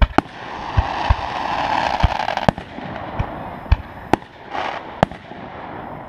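Consumer fireworks going off: about nine sharp bangs from small aerial shells in six seconds, over the hissing spray of a ground fountain that is loudest in the first half.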